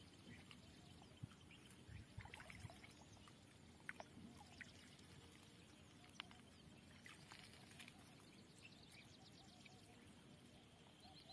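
Near silence: faint open-air background at the water's edge, with a few soft ticks and light splashes scattered through it.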